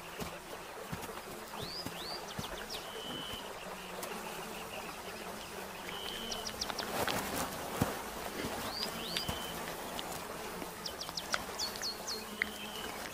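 Flies buzzing steadily around a rotting carcass, with a bird calling four times: a few short rising chirps, then a brief held whistle.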